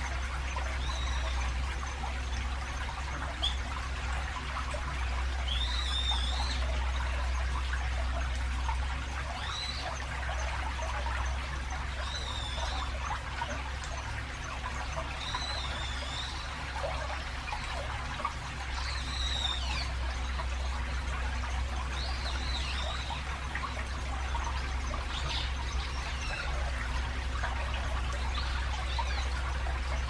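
Shallow stream trickling between concrete channel walls over a steady low rumble of traffic from a busy road bridge nearby. A bird gives a short call about every three seconds.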